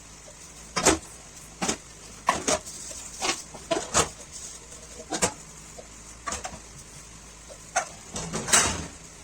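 Dishes and utensils clattering as they are handled and scrubbed: about a dozen sharp, irregular clinks and knocks, with a longer scraping clatter near the end.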